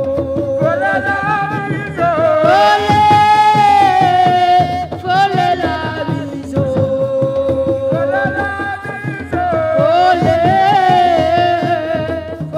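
Music: a solo voice sings long, held, wavering notes over a steady beat of drum strokes.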